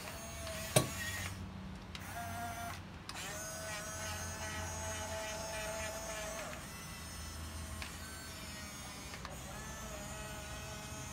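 Huina 1550 RC excavator's small geared electric motors whining in starts and stops as the cab slews and the boom and arm move, the longest run lasting about three seconds. A sharp click sounds about a second in.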